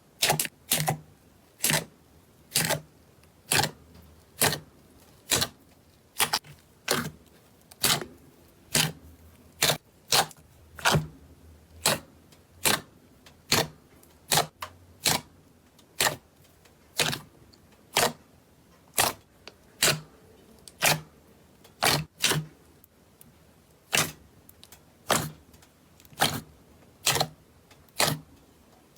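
Slime being worked, making a steady run of sharp clicking pops, about one or two a second.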